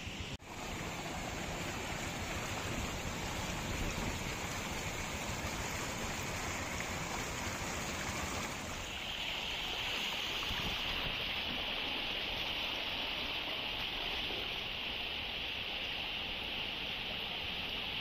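Rushing floodwater from heavy rain, a steady noisy torrent. It drops out for a moment near the start and turns brighter and hissier about halfway through.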